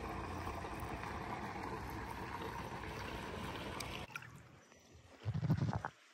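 Steady rushing and trickling of swimming-pool water, then after a cut a quieter background with one short, low rumble a little over five seconds in.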